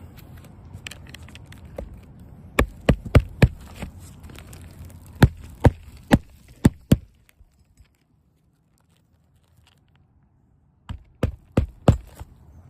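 Hammer blows driving nails: three quick runs of four or five sharp strikes, with pauses between them and a stretch of near silence before the last run.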